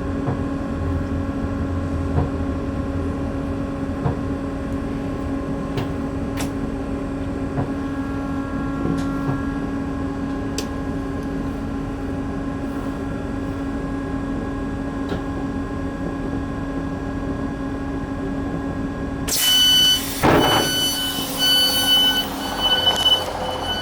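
Steady hum and rumble of a passenger train running. About nineteen seconds in, the door warning starts beeping repeatedly and the sliding doors open with a short rush of noise.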